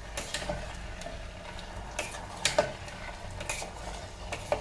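A spoon stirring thick curry gravy in an electric kettle's cooking pot, scraping with a few sharp clinks against the pot; the loudest clinks come about two and a half seconds in and near the end.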